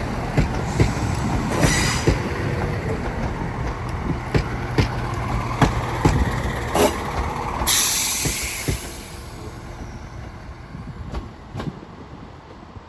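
Class 171 Turbostar diesel multiple unit running into the platform, its engines droning under repeated sharp clicks of the wheels over rail joints. About eight seconds in comes a loud hiss of air from the brakes, and the sound dies down as the train comes to a stand.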